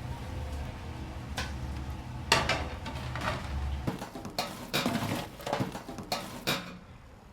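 Dishes and utensils clattering in a busy kitchen, as a string of separate knocks and clinks over a low hum that stops about four seconds in.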